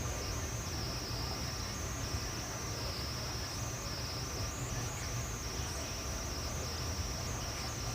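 Steady high-pitched chirring of insects, with a low rumble of background noise underneath.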